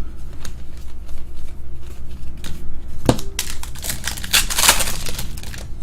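Trading cards being handled and flipped through, a run of light clicks and snaps with a sharper knock about three seconds in and a brief rustle near the end.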